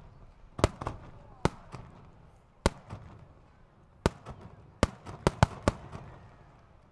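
Fireworks display shells bursting: sharp bangs at irregular intervals, each trailing off in a short echo, with a quick run of several bangs about five seconds in.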